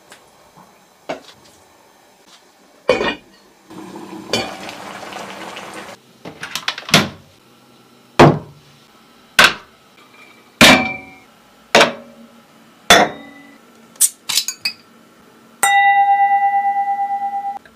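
A series of sharp clanks and clinks of cookware and dishes, roughly one a second, with a couple of seconds of hiss early on. Near the end a glass is struck and rings with a clear, sustained tone for about two seconds.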